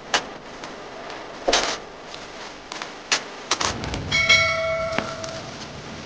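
Bubble-wrap mailer being handled and sealed with brown packing tape: a run of sharp crackles and snaps, and about four seconds in a short squealing rasp as tape is pulled off the roll.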